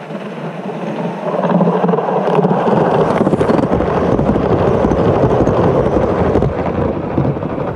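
A Gauge 1 model train running past close by, its coach wheels rumbling over the rails. The sound builds about a second in and stays loud as the coaches pass, easing slightly near the end.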